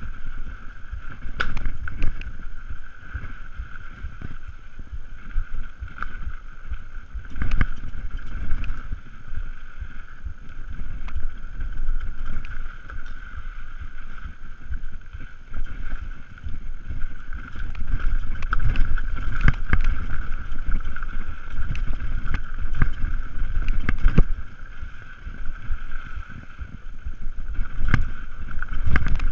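Mountain bike descending a bumpy dirt singletrack: wind rushing over the camera microphone and tyre rumble, swelling and easing, with frequent sharp knocks and rattles from the bike over bumps and a steady high buzz.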